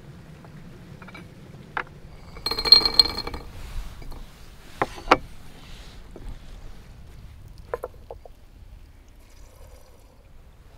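White porcelain teapot and its lid clinking as they are handled: a ringing rattle a little over two seconds in, then two sharp clinks about two seconds later and a few light taps near the end.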